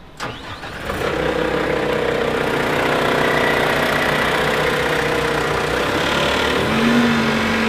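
Genie GTH-5519 telehandler's diesel engine coming up to speed about a second in and then running steadily as the machine drives, with a steady whine that drops to a lower pitch near the end.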